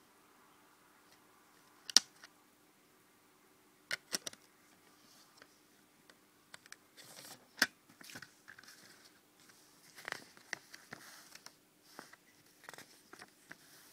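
Handling of a plastic CD jewel case: a few sharp clicks and taps of the case, then soft rustling as the paper booklet is leafed through.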